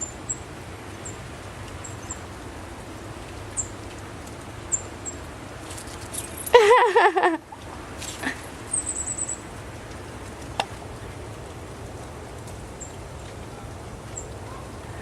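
Short, faint, high chirps every second or two over a steady low hiss. About six and a half seconds in comes a louder wavering call lasting about a second, like an animal's whine.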